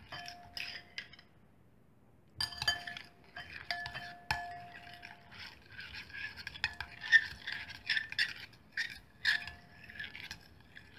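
Metal spoon stirring and scraping through sticky glue slime in a glass bowl, repeatedly clinking against the glass with a short ringing after each knock. A brief pause comes about a second in, then the stirring resumes and carries on.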